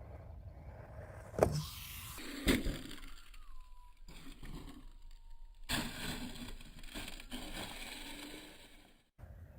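HBX Rampage RC truck running over loose ground, heard in several short clips that cut off abruptly. Two sharp thumps come about a second and a half and two and a half seconds in, and a thin steady high whine runs through a stretch in the middle.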